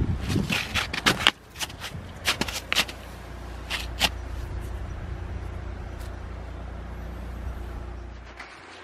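Red plastic snowshoes crunching and clacking on icy, granular snow as a person steps about in them, a cluster of sharp crunches in the first four seconds, then stillness. A steady low rumble sits underneath and fades near the end.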